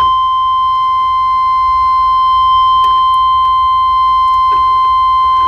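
Electronic warning buzzer sounding one steady, unbroken high-pitched tone that starts suddenly and is loud.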